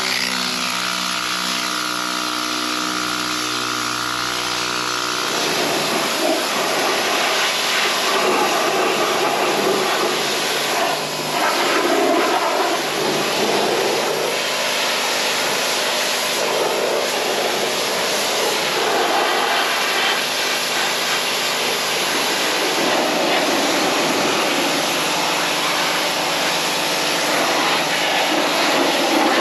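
Pressure washer running and spraying a steady, hissing jet of water.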